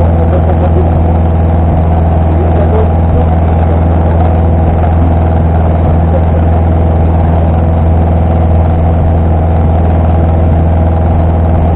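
Rally car engine idling steadily, loud inside the bare, caged cockpit, with an even pitch that does not rise or fall.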